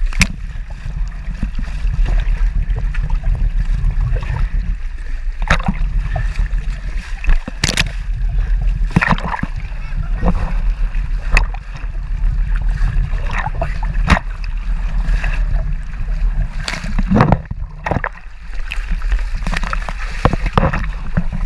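Waves splashing and slapping against the hull of a moving wooden boat, with sharp irregular splashes of spray over a steady low rumble.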